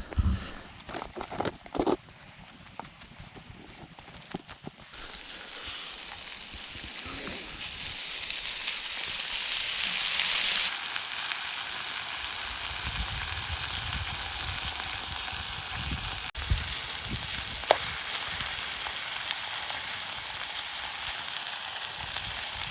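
Food frying in a pan, its sizzle building over the first ten seconds and then holding steady. A few light knocks sound in the first couple of seconds and once more later on.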